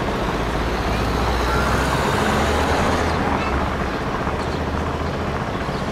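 Busy city street ambience: a motor vehicle's engine running with a steady low rumble that fades near the end, over general traffic noise and scattered voices of passers-by.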